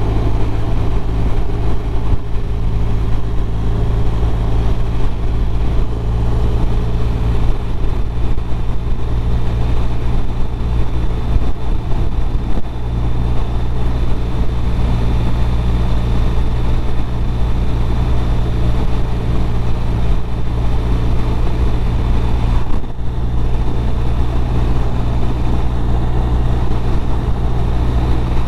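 BMW R1200RT's flat-twin boxer engine droning steadily at cruising speed, under a constant rush of wind and road noise.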